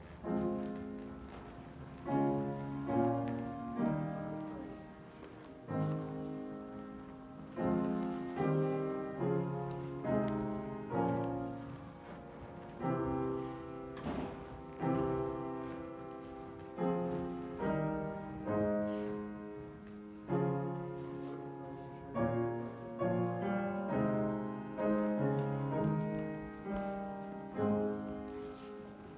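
Solo piano playing a slow piece in chords. Each chord is struck and left to fade before the next, about one a second.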